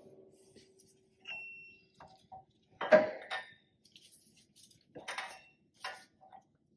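Scattered metallic knocks and clinks, one with a brief ring, the loudest about three seconds in, from a front CV axle shaft being worked free of the hub and differential.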